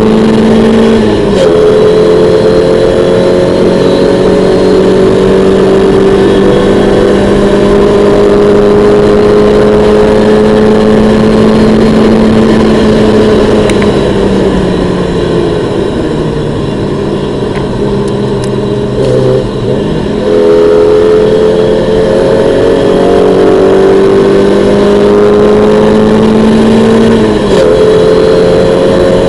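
A 1991 Mazda MX-5's 1.6-litre four-cylinder engine heard from inside the cabin while lapping a race track: revs drop sharply about a second in at an upshift, then climb slowly under full throttle along the straight. About halfway through the revs fall and stay lower as the car slows for a corner, then climb again, with another upshift near the end.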